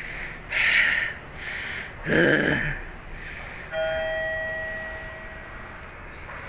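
A few loud, harsh bursts, then an elevator's arrival chime: one bell-like ding, several tones together, fading away over about two seconds.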